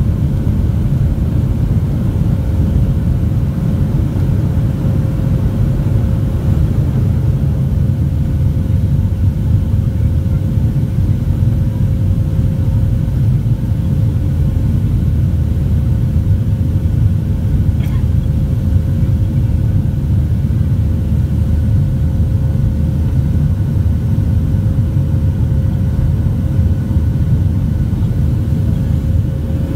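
Cabin noise of a Boeing 737-700 under takeoff power, heard from a seat over the wing: its CFM56-7B turbofans make a loud, steady rumble with a thin steady hum above it, through the takeoff run and initial climb.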